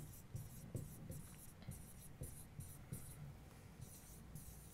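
Faint scratching and tapping of a pen stylus writing on an interactive touchscreen board, in short strokes with brief gaps between them.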